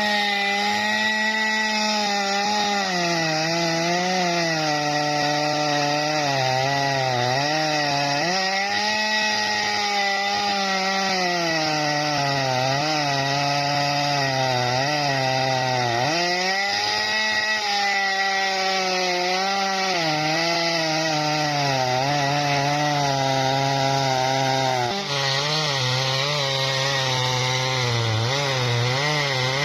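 Jonsered chainsaw ripping lengthwise through a tough bendo log, the engine running continuously at high speed and repeatedly dropping in pitch as the chain is loaded in the cut, then picking up again.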